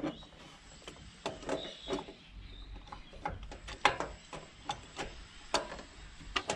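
Metal throttle bodies of an individual-throttle-body kit clicking and knocking against each other and the intake studs as they are handled and slipped onto the studs: scattered light knocks at irregular intervals.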